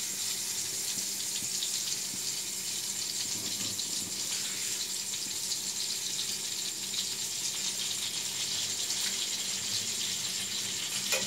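Butter melting and sizzling in a hot aluminium wok, a steady even hiss.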